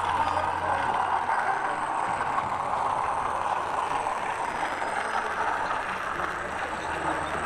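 OO gauge model diesel locomotive running with its coaches on the layout's track, a steady running noise under the even background din of an exhibition hall.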